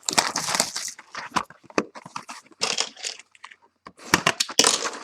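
A trading-card hobby box being opened by hand: irregular tearing, crinkling and rustling of wrapping and cardboard, pausing briefly about three and a half seconds in.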